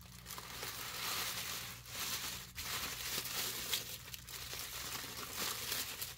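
Thin white tissue paper crinkling and rustling as it is handled and pulled open to unwrap a leather shoulder strap, with short lulls about two seconds in.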